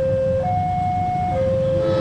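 Railway level-crossing warning alarm sounding its two-tone signal, a lower and a higher tone alternating about once a second, over a steady low rumble. Near the end a second, buzzier tone briefly joins in.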